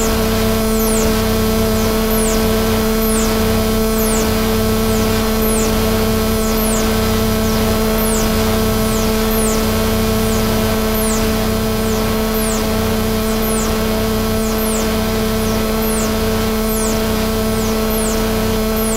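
Electronic noise from three Noise Rumble noise-synth pedals run through a Korg KP3 Kaoss Pad: a steady low drone with overtones over a bed of hiss and pulsing hum, with short high chirps falling in pitch about every two-thirds of a second.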